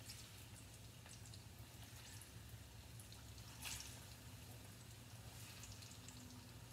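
Plantain slices going one by one into hot coconut oil in a frying pan, sizzling faintly with scattered crackles and pops; one louder crackle comes about midway. A low steady hum runs underneath.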